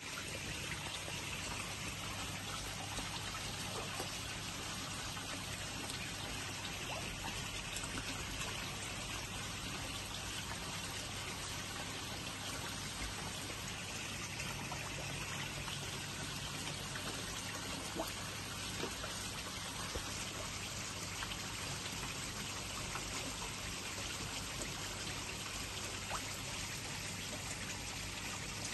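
Steady trickling and splashing of running water into a koi pond.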